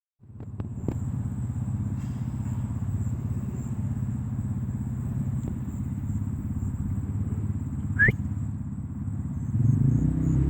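A vehicle engine running steadily with a low drone, with a short rising squeak about eight seconds in; the engine gets louder near the end.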